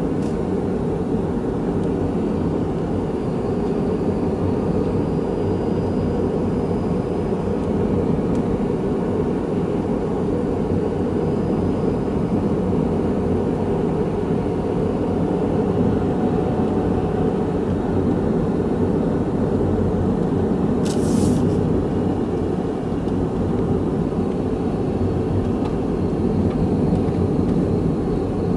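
Steady low rumble of a car's road and engine noise heard inside the cabin while driving. A brief high hiss cuts in once, about three-quarters of the way through.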